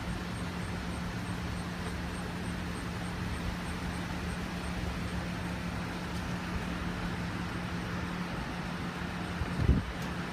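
Steady hum of a vehicle engine running, with one brief low thump near the end.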